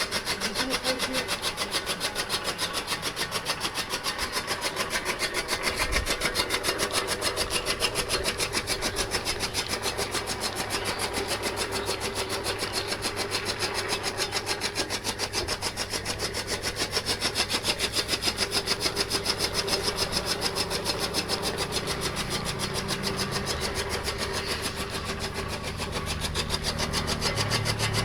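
Motorised grass-cutting machine running, with a fast, even rasping rhythm. A deeper motor hum grows stronger near the end.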